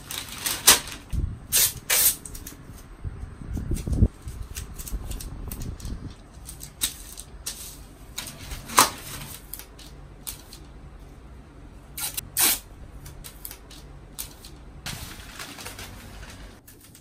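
Sheets of newspaper rustling and crinkling as they are handled and taped together with masking tape, with a string of sharp crackles.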